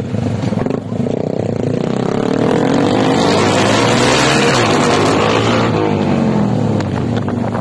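Motorcycle engine speeding up, its note climbing for a few seconds and then dropping back as it eases off, with a rushing noise loudest while it is at speed.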